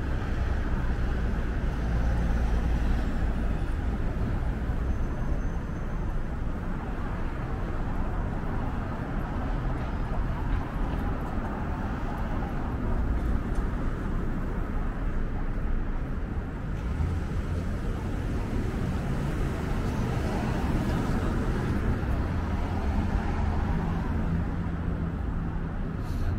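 Downtown street traffic: a steady wash of cars and engines passing, with a heavier engine hum standing out from about two-thirds of the way through.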